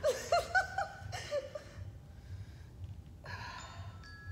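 A woman's breathless laughter in short bursts for the first second and a half, then heavy breathing with a gasp about three seconds in, while she holds an ab crunch.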